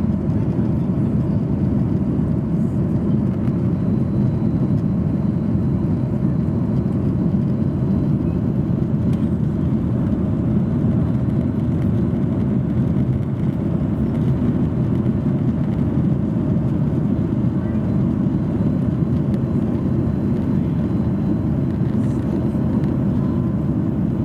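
Steady cabin noise inside a Boeing 737-800: its CFM56-7B turbofans and the airflow over the fuselage make an even, low-pitched rumble that holds level throughout.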